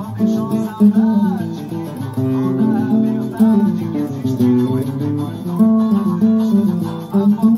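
Seven-string acoustic guitar played solo: a choro tune in quick single-note melodic runs over low bass notes, with some notes sliding in pitch.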